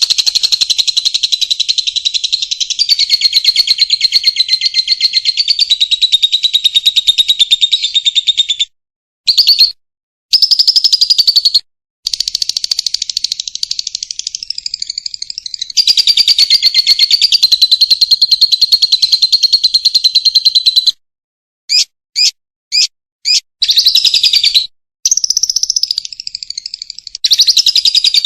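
Lovebird's long 'ngekek' chatter: very rapid, high-pitched notes run together into long trills several seconds at a time, broken by brief pauses. A few separate short calls come about three quarters of the way through.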